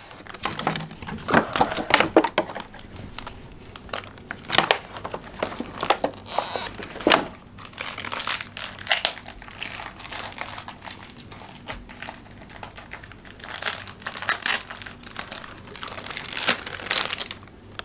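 Plastic toy packaging crinkling and rustling in irregular crackles as it is handled and opened.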